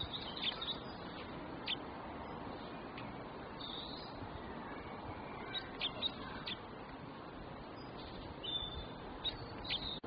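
Small songbirds chirping outdoors: short, high chirps in scattered groups, a few near the start, one cluster around the middle and a few more near the end, over a steady background hiss.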